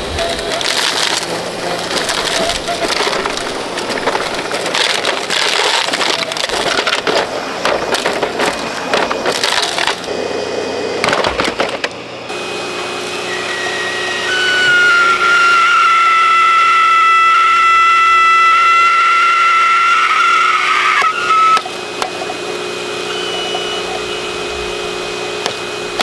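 A Sharp Twin Energy vacuum cleaner being broken apart: a long run of irregular cracking, crunching and splintering for about twelve seconds. Then a motor runs with a steady high whine that cuts off about two-thirds of the way through, leaving a lower steady hum.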